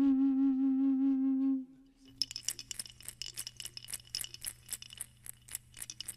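Cashaloma ocarina holding one steady low note that stops about a second and a half in. After a short pause a sonaja rattle is shaken in a rapid, even run of dry clicks for the rest of the time.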